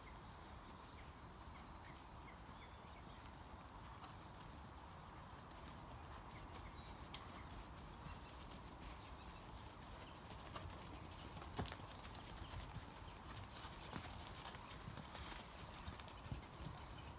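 A horse's hoofbeats on a sand arena surface, faint at first and growing louder and more distinct in the second half as the trotting horse comes close.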